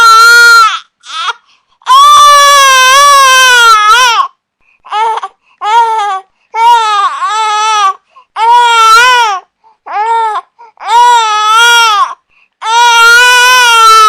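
Infant crying: a string of high-pitched wails, one about two seconds long and the rest a second or shorter, broken by brief silent gaps as the baby draws breath.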